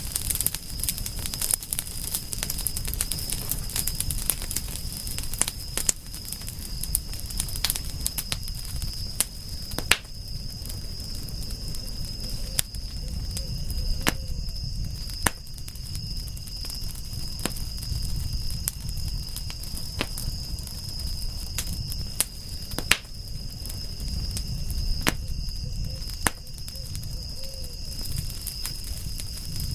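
Wood fire crackling: sharp pops and snaps, several a second in places, over a low rumble of burning flames, with a steady high-pitched tone underneath.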